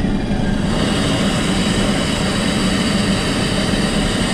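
Airplane lavatory push-button sink tap running a thin stream of water into the basin, a steady hiss that grows stronger about a second in. Underneath is the steady drone of the aircraft cabin.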